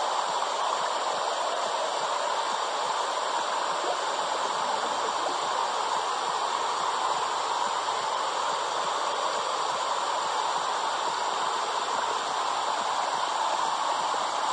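Womb sound for soothing babies: a steady rushing hiss, centred in the middle range, with no clear heartbeat.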